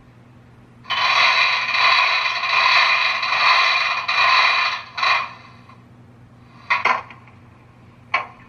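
Sound effects from a QSI Titan sound decoder, playing through the small speakers of an HO-scale model locomotive that is standing still. A loud hissing blast lasts about four seconds, then comes a short one, then three brief bursts near the end, all over a faint steady hum.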